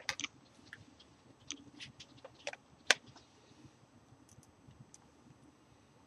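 Scattered small clicks and taps of tools and hands working on a Samsung Galaxy S3 during a glass repair, the sharpest click about three seconds in.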